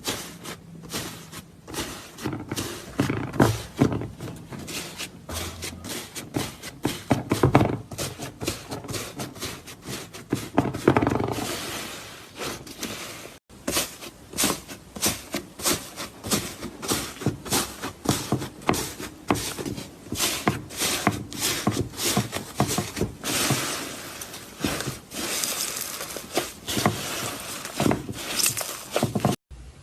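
Slime being squeezed and poked, giving a fast, irregular run of crackling clicks and pops.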